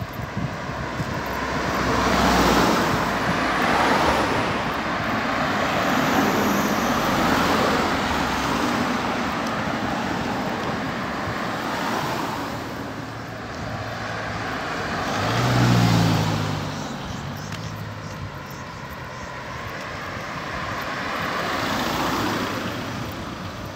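Road traffic passing on the adjacent road: vehicles go by one after another, each swelling and fading. A heavier vehicle's engine hums through the loudest pass, about two-thirds of the way in.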